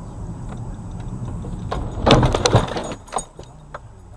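Steady car road rumble heard from inside the cabin, then about two seconds in a loud half-second burst of crunching and rattling knocks, typical of a vehicle collision impact. A few sharp clicks follow, and the rumble dies down as the car comes to a stop.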